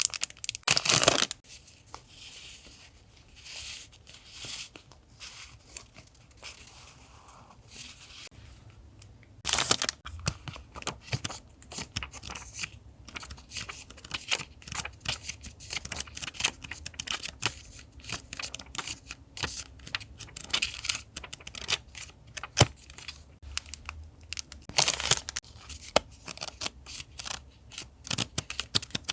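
Paper being handled for a collage: three loud rips of paper being torn, near the start, about a third of the way in and near the end, with many small crinkles, taps and scratches of paper in between.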